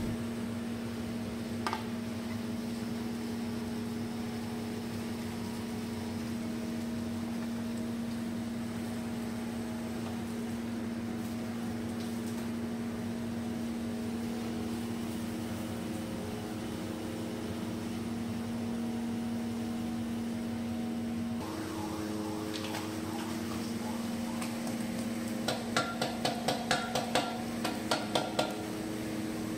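A steady machine hum at one pitch runs throughout, shifting slightly about three-quarters of the way through. Near the end, cooking oil glugs out of an upturned plastic bottle into a large aluminium pot, about ten quick glugs in a row.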